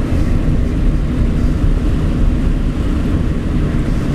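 Steady rumble inside the cab of a pickup with a turbo Cummins diesel, driving on a rain-soaked road: engine, tyre and rain noise mixed together, with no distinct events.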